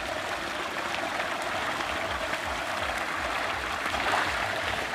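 Steady splashing and churning of pond water, many small splashes together, from a dense shoal of baby hybrid magur catfish thrashing at the surface as they feed.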